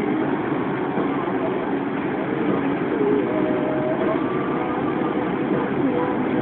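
Car driving along a road, steady engine and road noise heard from inside the cabin.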